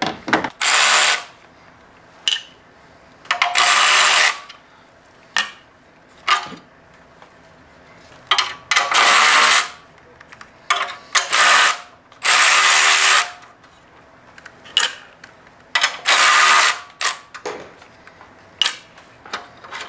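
Ratchet wrench working fasteners loose in a series of short runs of rapid clicking, the longest about a second, with pauses between them, while the NOx sensor bracket is unbolted.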